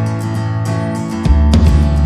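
Background music with a steady beat; about halfway through, a deeper bass part comes in.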